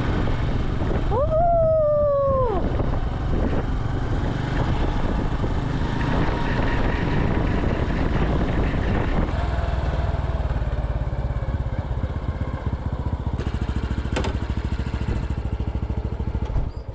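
Honda Super Cub's small single-cylinder four-stroke engine running with wind and road noise while riding, heard from the rider's seat. About a second in, a brief pitched tone rises and then slowly falls; the engine noise stops near the end as the bike halts at the pump.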